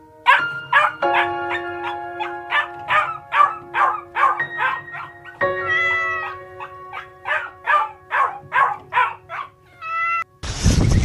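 A dog barking and yipping in short, repeated barks, about two or three a second, over background music with held notes. A loud burst of rushing noise comes in near the end.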